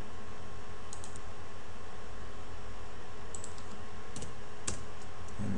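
A handful of sharp computer keyboard and mouse clicks, some in quick pairs, the loudest near the end, as mesh points are selected and moved. A steady low hum runs underneath.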